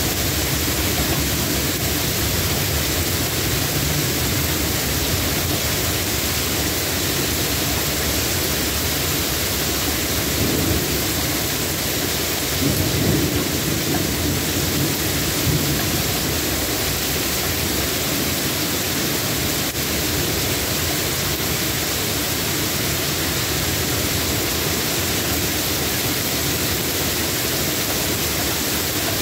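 Steady rain falling, with a low roll of thunder rumbling about a third of the way in, for several seconds.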